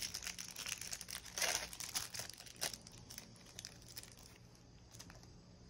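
Thin clear plastic wrapper crinkling as it is pulled off a small triangular eraser by hand. The crackling is dense at first and thins to a few scattered crackles after about three seconds.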